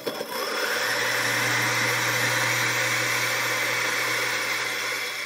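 Turin DF83V single-dose coffee grinder grinding a dose of beans, its variable-speed brushless motor set to 1200 RPM driving 83 mm flat burrs: a steady motor hum under the grinding hiss of the beans, tailing off near the end.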